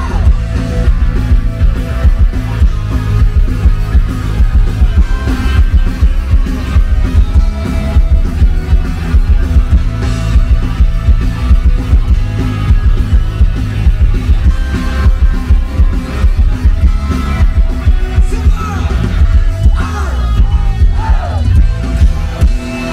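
A rock band playing live on stage: electric guitars, bass guitar and drums, loud, with a strong low bass and a steady beat.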